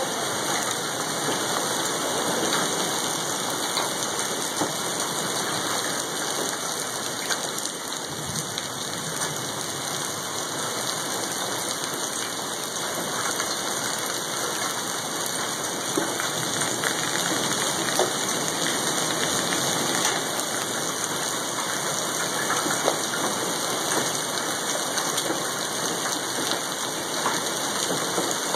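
Hail and rain falling steadily in a storm: an even hiss of precipitation dotted with many sharp ticks of individual hailstones striking.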